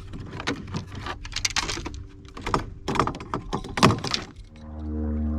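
Irregular knocks and clattering of a hooked bass and gear being handled in a small fishing boat. About four and a half seconds in, a steady electric hum starts: the boat's trolling motor running.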